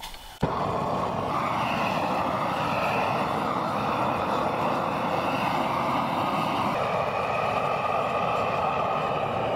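Propane weed-burner torch running at full flame while charring a log: a loud, steady rushing roar that starts abruptly about half a second in.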